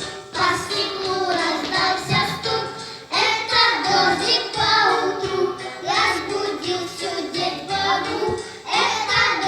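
Children singing a children's song about rain, with musical accompaniment.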